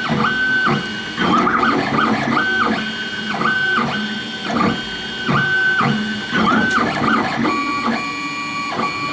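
3D printer running a print: its stepper motors whine in short held tones that jump and slide in pitch about once a second as the head moves, over a steady mechanical whir.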